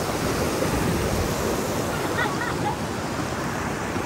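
Rushing river water, a steady even noise that does not let up.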